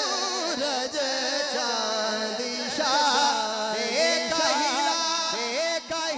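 A man singing a devotional Urdu naat into a microphone, his voice sliding through long, wavering, ornamented notes.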